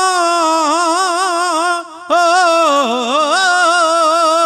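Kavishri singing: a long drawn-out held note with vibrato. It breaks off for a moment about two seconds in, then winds through an ornamented run and settles back onto a sustained note.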